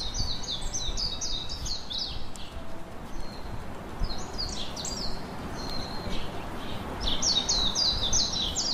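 A songbird singing fast runs of repeated high, falling chirps, about four a second, in bursts of a second or two, over steady outdoor background noise.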